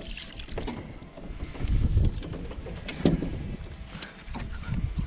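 Sounds of a hooked smallmouth bass being reeled in beside a boat: low rumbling surges of wind or handling noise on the microphone, several sharp knocks, and splashing at the surface.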